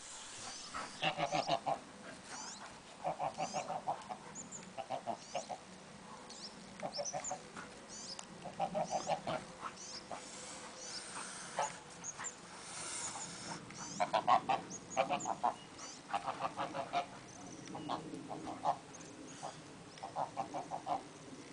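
Domestic white geese honking at a dog close by: short bursts of rapid, stuttering calls, repeated about nine times. Faint high chirps sound in the background.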